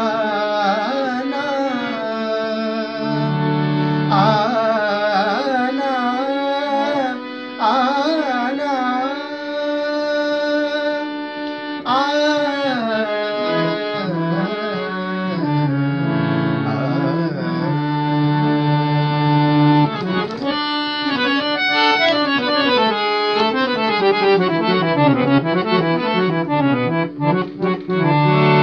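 A man sings a slow melody in a classical style, full of bending, ornamented runs, to his own harmonium accompaniment. The harmonium holds steady reed chords beneath the voice.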